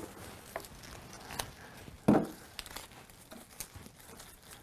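Rustling and crinkling of hybrid tea rose stems and leaves being handled on a table, with a few small clicks and one dull knock about two seconds in.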